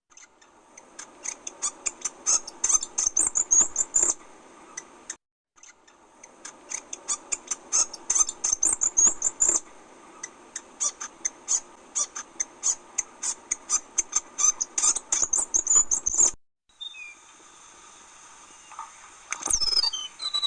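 Forest wildlife calling: rapid runs of sharp, high clicking chirps, several a second and uneven in loudness, broken by brief silent cuts. Near the end, a single quick call falls steeply in pitch.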